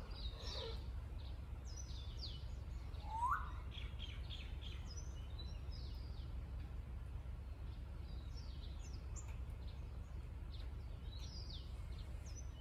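Birds chirping in the background, many short high chirps scattered throughout, with one louder rising whistle about three seconds in, over a steady low rumble.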